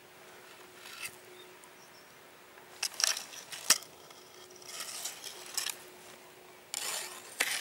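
Grass and dry leaves rustling as they are brushed and pushed aside, with a few sharp clicks. The loudest rustling comes near the end.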